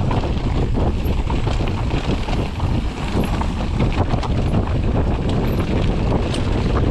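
Wind rushing over the microphone as a Mondraker Foxy enduro mountain bike rolls fast down a dirt trail, its knobby tyres running over the ground and the bike rattling and clicking over bumps.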